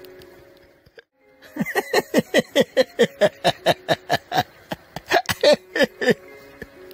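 A rapid run of short vocal calls, each falling in pitch, about five a second, over a faint steady music chord. There is a brief pause about a second in, then the calls go on until near the end.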